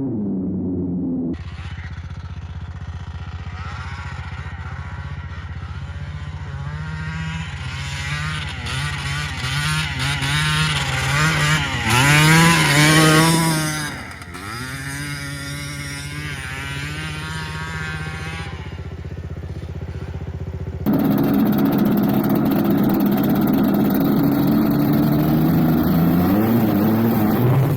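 Yamaha Blaster's 195 cc single-cylinder two-stroke engine being ridden hard, revving up and dropping back over and over. It is loudest about halfway through, then falls off sharply. The sound changes abruptly twice, as between separate takes.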